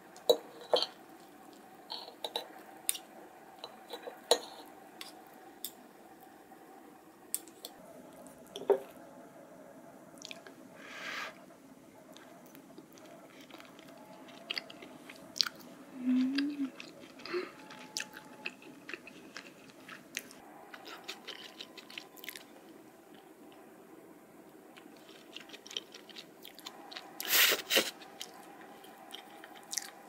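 Knife and fork cutting through cheese-topped pizza toast on a ceramic plate: scattered light clicks of cutlery against the plate and crunches of the toasted bread crust, the loudest crunch near the end.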